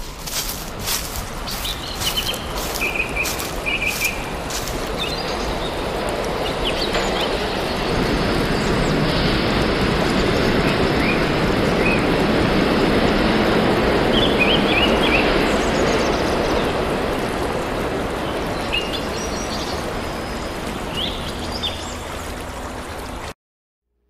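Outdoor nature ambience: a steady rushing noise with scattered bird chirps, opening with a run of sharp clicks. The rushing swells toward the middle, eases off, then cuts off suddenly near the end.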